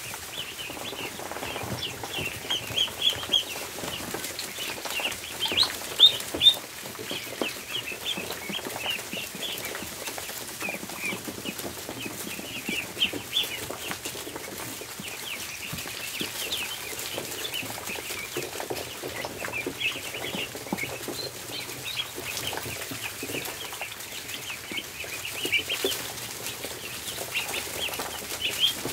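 A group of ducklings peeping continuously, many short high peeps overlapping, with scattered light taps and scuffling from the birds feeding on the barn floor.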